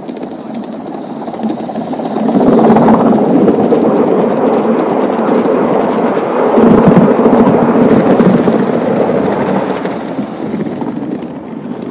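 Gauge 1 model train of coaches and goods wagons rolling past close by, its wheels running on the rails in a steady rumble that swells about two seconds in and fades near the end.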